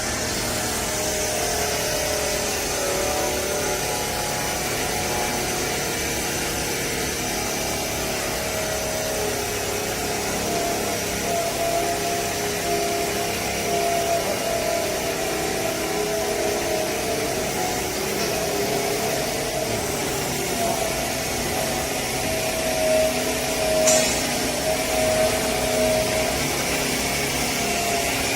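Vertical lifting-chamber baler running: steady machine noise with a wavering whine, and one sharp knock about 24 seconds in.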